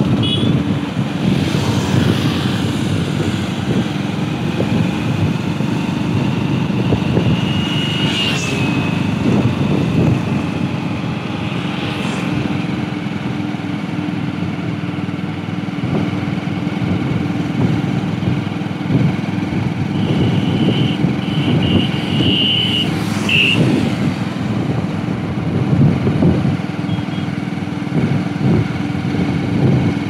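A Hero HF Deluxe motorcycle runs steadily at road speed, with road noise, riding close behind a JCB backhoe loader's engine. A few brief high-pitched tones come and go about two-thirds of the way through.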